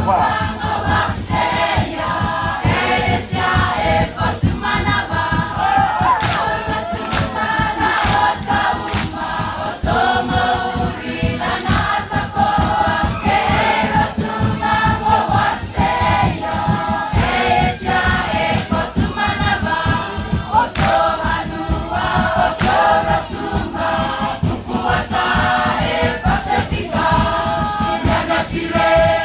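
A large group of students singing a Rotuman hafa in chorus, with regular percussive beats keeping time under the voices.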